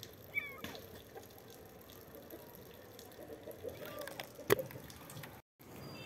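A newborn kitten trapped between two walls gives a thin, high mew that falls in pitch, about half a second in, with fainter cries later. A sharp knock about four and a half seconds in is the loudest sound.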